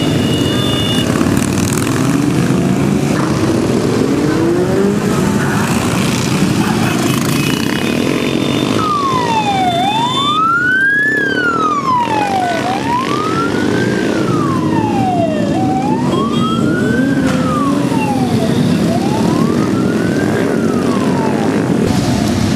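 Motorcycle engines running as bikes ride past in a parade. About nine seconds in, a wailing siren starts, rising and falling slowly about four times over roughly twelve seconds before stopping near the end.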